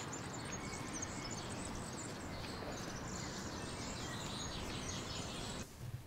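Steady outdoor background noise with faint high chirping. It cuts off abruptly near the end.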